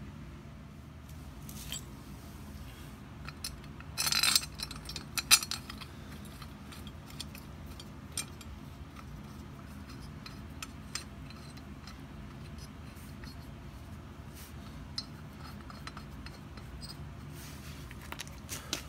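Light metallic clinks, taps and scrapes of steel head bolts and the cast cylinder head of a Briggs & Stratton small engine being handled and the bolts threaded in by hand. There is a louder clatter of knocks about four to five and a half seconds in.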